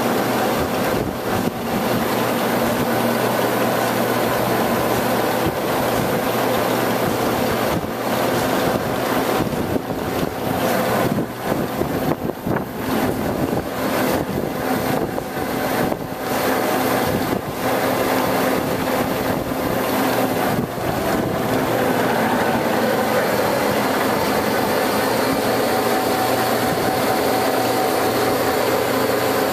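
Warner & Swasey No. 4A turret lathe running under power, its chuck spinning: a loud, steady mechanical noise of spindle, gearing and drive motor with a faint steady hum, dipping briefly a few times in the middle.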